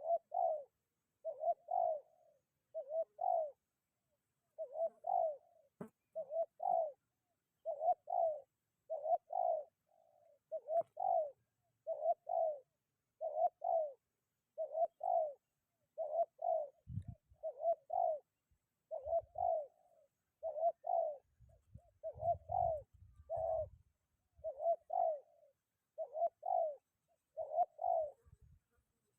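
Spotted dove (tekukur) cooing over and over in short, even phrases about every second and a half. Low rumbles of wind on the microphone come in a few times in the second half.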